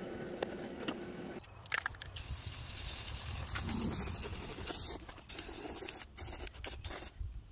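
Aerosol spray paint can spraying: one long, steady hiss of about three seconds, then several shorter bursts with brief breaks between them. A low wind rumble sits on the microphone underneath.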